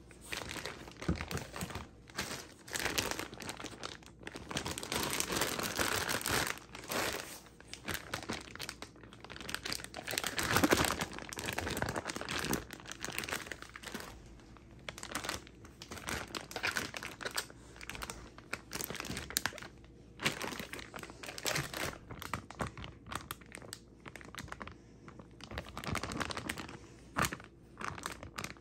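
Plastic zip-top freezer bags holding meat crinkling and rustling as they are handled, in irregular bursts with the loudest about ten seconds in.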